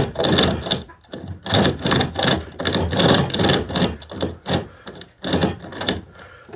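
SOG pocket chainsaw, a hand-pulled chain with chainsaw cutters, sawing through a dried-out 4x4 timber in back-and-forth strokes, about one to two rasping strokes a second, with the cut close to finished.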